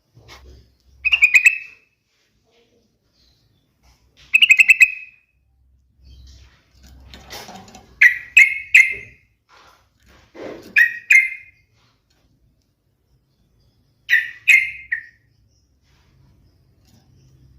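Yellow-vented bulbul (trucukan) singing: five short, bubbly, rapidly warbled phrases, some of two or three quick notes, spaced a few seconds apart.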